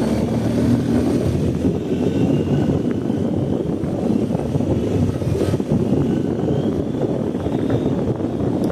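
BMW R 1250 GS's 1254 cc boxer-twin engine running steadily while riding on a trail.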